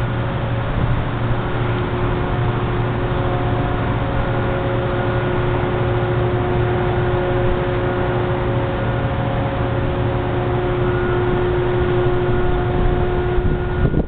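A vehicle engine running steadily at idle: a constant low hum with a few steady tones that do not change pitch, over an even hiss.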